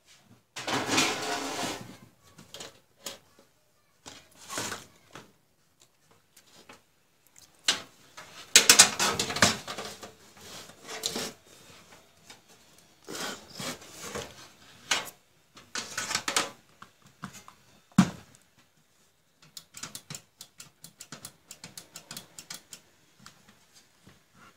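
Handling noises from working inside an open desktop PC case: cables and parts rustling and clattering in irregular bursts, one sharp knock about two-thirds of the way through, and a quick run of light clicks near the end.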